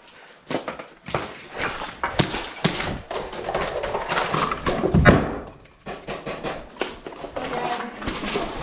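A run of sharp taps and knocks on hard surfaces, with a heavy thud about five seconds in.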